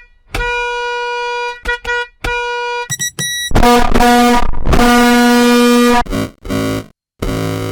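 Bus horn sound effect played in a string of edited variations. First come a few blasts at one pitch, then two short higher toots, then a long, louder blast at a lower pitch, and near the end a still deeper version.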